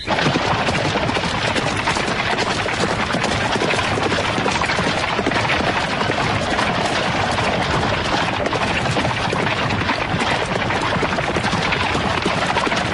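Steady, loud rushing noise with a fast rattling texture and no clear pitch.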